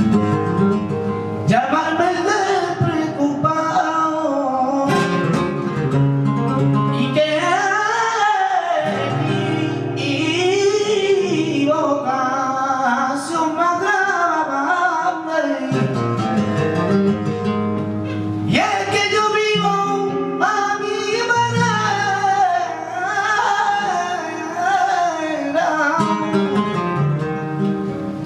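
Flamenco cante: a male singer's long, wavering sung lines over flamenco guitar accompaniment.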